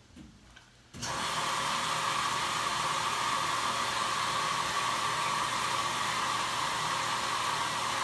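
Speed Queen top-load washing machine filling: about a second in, with the lid shut, water starts rushing into the tub through the inlet, a steady even rush. The machine pauses filling while the lid is open and resumes once it is closed.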